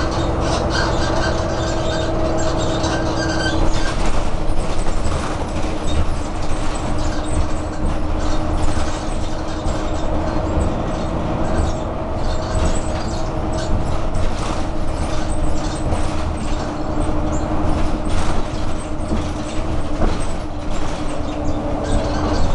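Interior of a Renault R312 city bus on the move: the low engine and road rumble runs steadily under a constant whine. From about four seconds in, louder clattering rattles from the body and fittings come over it.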